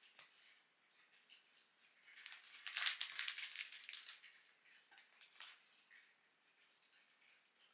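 Dry shredded kelp (tororo kombu) being pulled apart by hand and its plastic packet handled: faint rustling and crackling, with a louder spell of crinkling from about two to four seconds in, then a couple of small clicks.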